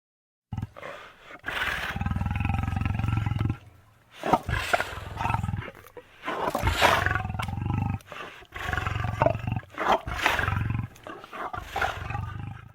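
Lion roaring: about five long, deep calls with short breaks between them, ending abruptly.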